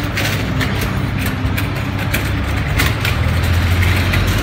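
A vehicle engine idling: a steady low hum that grows a little stronger near the end, over street noise with scattered small clicks and knocks.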